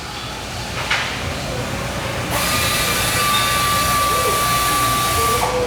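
A machine runs for about three seconds with a steady whine over a hiss, starting and stopping abruptly. A single click comes just before one second in.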